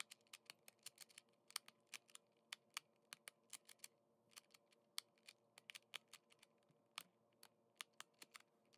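Shengshou magnetic Rubik's Clock being scrambled by hand: an irregular run of small, sharp plastic clicks, several a second, as the dials are turned and snap from position to position and the pins are pushed.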